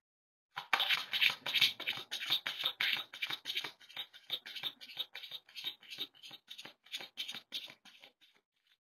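A deck of tarot cards being shuffled by hand, overhand: a fast run of papery card flicks and slaps, about five a second. It starts just over half a second in and thins out near the end.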